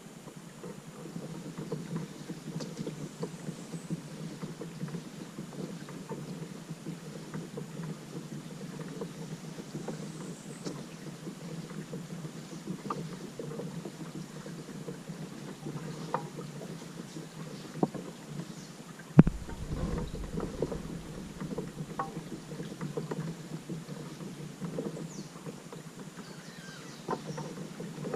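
Kayak out on the water: a steady low wash of water with scattered small knocks and splashes, and one sharper knock with a low thud about two-thirds of the way through.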